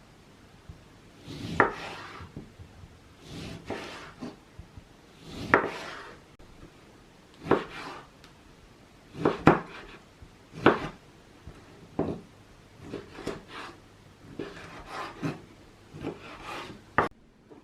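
A knife cutting food on a wooden cutting board: separate short slicing strokes at uneven intervals, a second or two apart.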